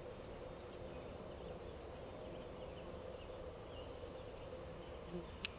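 Faint, steady buzzing of insects in a field. A single sharp click comes just before the end.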